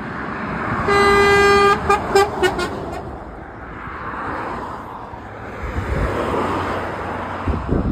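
Lorry horn sounding one long blast about a second in, then four quick toots, followed by the rush of traffic passing close by.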